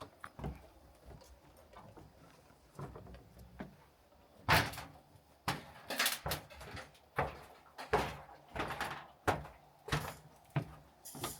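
A series of sharp knocks and thumps, faint at first and then about one every half second to second from about four and a half seconds in.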